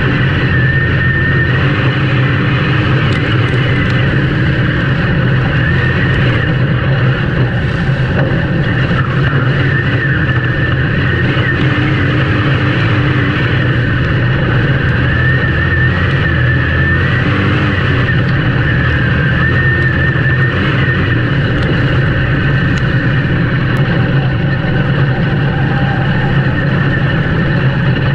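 Race vehicle engine running steadily under power, a loud continuous drone with a high whine that wavers up and down.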